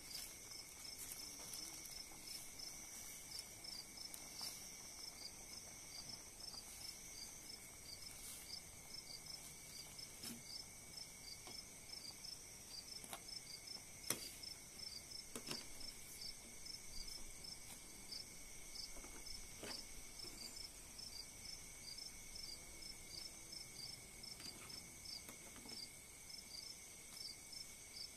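Crickets chirping steadily, about two chirps a second, over a faint steady high insect trill. A few light knocks of a ladle against the steel pot, the sharpest about 14 seconds in.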